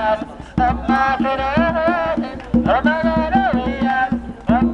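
Singing with wavering, ornamented melodic lines over a hand drum beating a quick steady rhythm, about five strokes a second; the singing pauses briefly twice.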